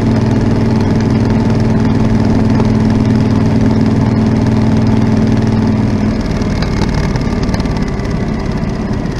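Yamaha Super Tenere XT1200ZE's parallel-twin engine idling steadily through an aftermarket Delkevic 343 mm oval carbon-tipped exhaust; about six seconds in the steady note breaks up and the sound drops a little.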